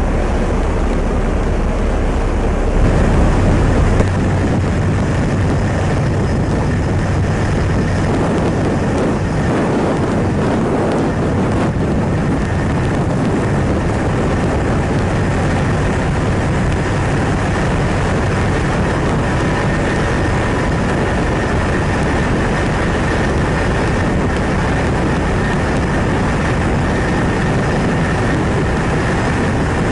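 Steady, loud rumble of a ship underway on the open ocean, with a faint steady whine over it and a briefly louder stretch about three seconds in.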